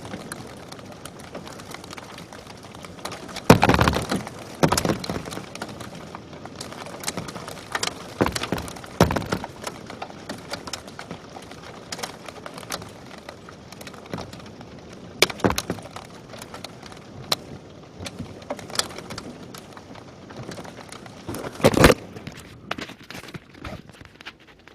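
Hailstones striking hard surfaces: irregular sharp cracks and knocks, a few much louder than the rest, over a steady hiss.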